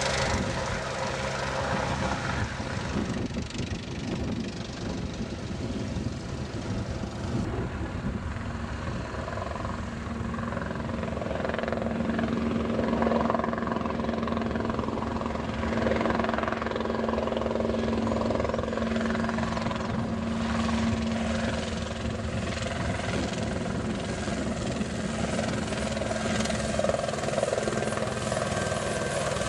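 Helicopter running: steady rotor and engine noise, with a steady hum coming in about ten seconds in and fading about ten seconds later.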